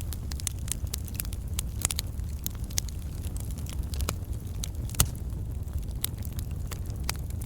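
Log campfire crackling: irregular snaps and pops of burning wood over a steady low rumble of the fire, with one sharper pop about five seconds in.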